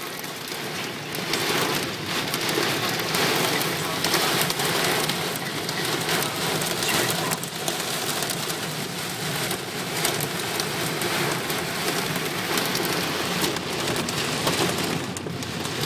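Steady rain falling, with many individual drops striking close to the microphone.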